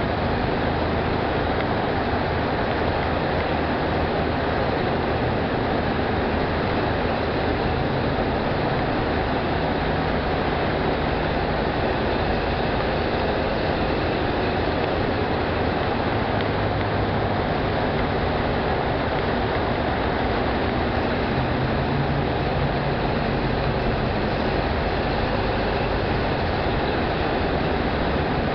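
Ford Model A driving through a road tunnel: its four-cylinder engine running under a steady rumble of tyres, wind and surrounding traffic, with no breaks or sudden events.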